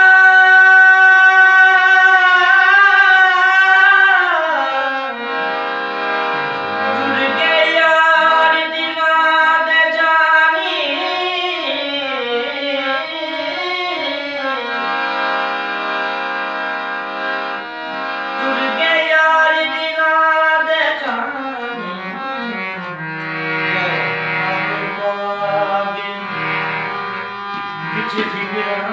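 A man singing a slow, ornamented melodic line while accompanying himself on a harmonium. The voice holds a long note for the first few seconds, then slides down and moves through winding runs over the harmonium's sustained reed tones.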